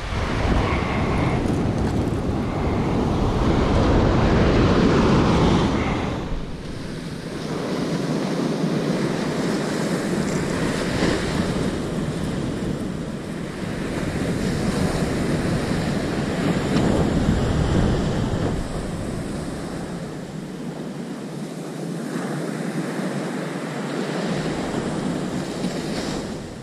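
Surf washing onto a sandy beach, with wind buffeting the microphone. The wind rumble is heaviest in the first six seconds, then drops off suddenly, and the surf rises and falls in level after that.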